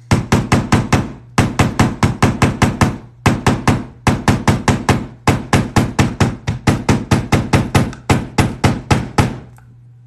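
A hammer striking the leather in quick runs of blows, about five a second, with short pauses between runs: pounding a fold in a leather tray to set the crease.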